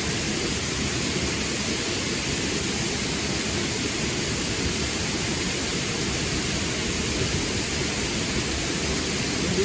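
Steady rushing of river water, an even unbroken noise with no change in level.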